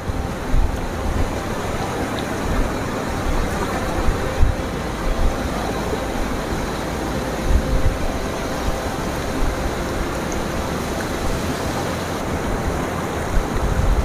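Steady rushing of a fast river, with irregular low rumbles of wind buffeting the microphone.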